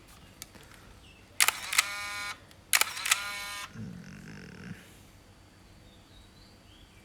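Nikon F50 35mm SLR firing twice at 1/2000 s, about a second and a half apart: each time the shutter and mirror clack and the built-in motor winds the film on with a short whir.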